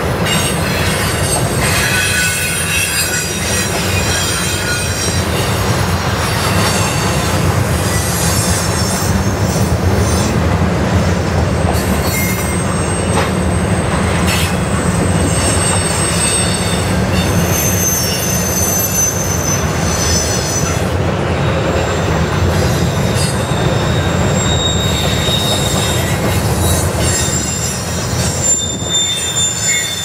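Freight train of tank cars rolling past at speed: a steady rumble of steel wheels on rail with clicks over the rail joints. High-pitched wheel squeals come and go every few seconds.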